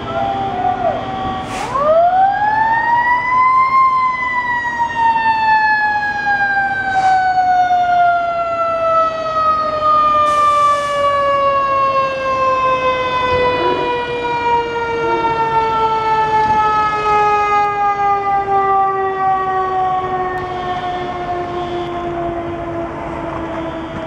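Fire engine siren winding up quickly about a second and a half in, then winding slowly down in pitch as it keeps sounding. A couple of brief clicks and a short hiss are heard partway through.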